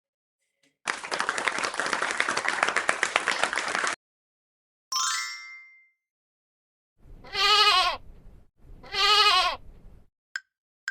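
Sheep bleating twice, each a loud, wavering baa about a second long. Before them come about three seconds of dense crackling noise and a short rising chime.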